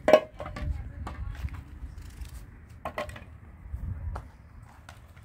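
A metal frying pan clanks as it is set down on concrete, the loudest knock just after the start, followed by scattered small clicks and taps from hands peeling garlic over the pan, with another cluster of knocks about three seconds in.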